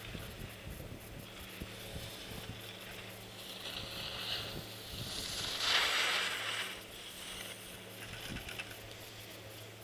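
Skis sliding and scraping over snow as skiers come down the slope: a soft hiss about four seconds in and a louder one around six seconds in, over a steady low hum.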